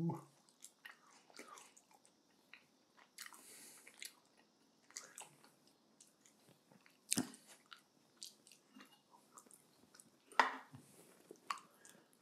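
Close-miked chewing of roast chicken: soft wet mouth clicks and crackles, with two louder sharp clicks about seven and ten seconds in.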